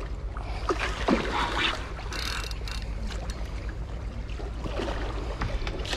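A hooked stingray splashing and thrashing at the water's surface, with a few sharp splashes about a second in, over a steady low rumble.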